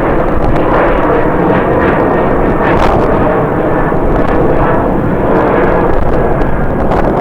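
Jet airliner engines making a steady, loud rush of noise, mixed with strong wind buffeting the microphone.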